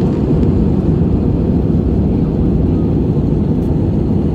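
Steady jet airliner cabin noise in cruise: an even, low rush of airflow and engines heard from a window seat over the wing.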